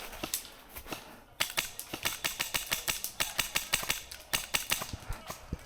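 Airsoft guns firing: a rapid, irregular run of sharp snapping shots that starts about a second and a half in and goes on to the end.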